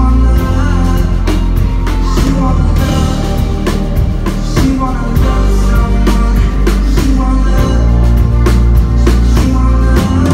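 Live rock band playing loud: drum kit hits over a heavy, sustained low bass, with a singing voice in the mix.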